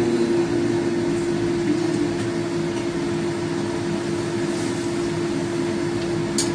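Steady machine hum with one constant droning tone, like a kitchen fan or motor running. A single short, high clink comes near the end.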